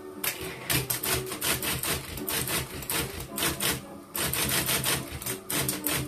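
A 1980 Brother Super 7900 D electric golfball typewriter being typed on quickly: a fast run of sharp strikes starting just after the beginning, with a brief pause about four seconds in.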